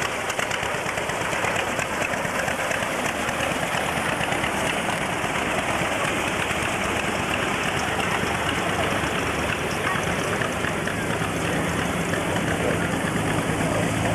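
A vehicle engine running, its low hum growing clearer over the last few seconds, under a steady hiss of outdoor noise.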